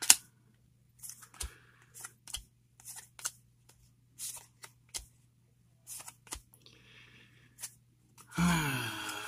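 Paper baseball cards being flipped off a stack by hand one at a time, each giving a short papery snap, about one every half second to a second, over a faint steady hum.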